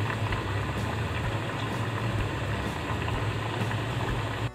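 Sweet potato fries deep-frying in hot oil: a steady sizzle over a low, steady hum. The sound drops out for a moment near the end.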